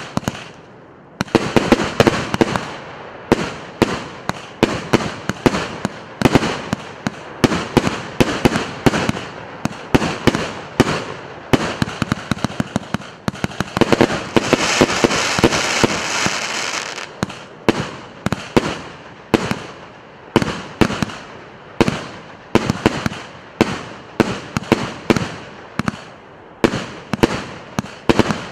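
PC890 consumer firework battery (cake) firing shot after shot, sharp bangs coming about one or two a second, with a stretch of dense crackling about halfway through.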